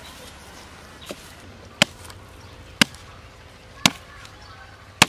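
A large knife chopping into a coconut's hard shell: four sharp strikes about a second apart, after a fainter knock about a second in.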